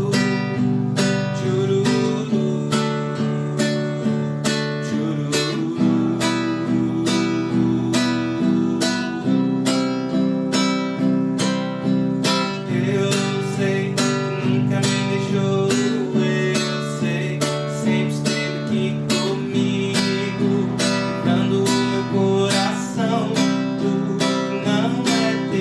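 Acoustic guitar strummed in a steady downward pattern of thumb then all fingers, about two strokes a second. It cycles through the chords G, D, E minor and C, changing chord every few seconds.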